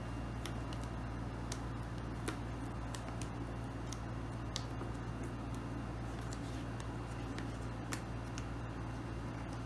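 Scattered light clicks and taps at an uneven pace, about one or two a second, from handling a keyboard and its packaging during unboxing, over a steady low hum.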